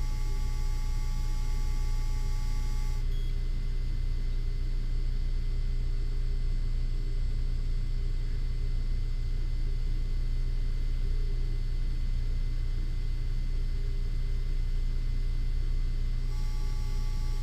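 Steady low electrical buzz from a Yuneec CGO3 gimbal camera. A few higher steady tones and a hiss above the buzz cut out about three seconds in and come back near the end.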